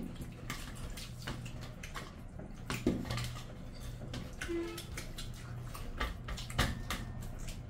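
Wet squelching and smacking of bare hands mixing rice with oily mutton curry on steel plates, mixed with chewing and lip-smacking, in many short irregular clicks and squishes.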